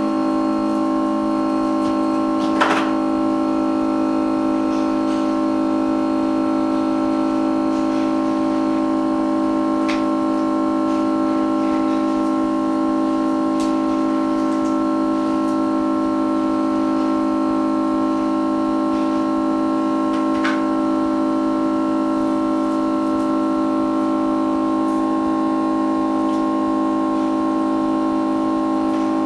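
Background music: one sustained keyboard-like chord held steady and unchanging, with a few faint clicks.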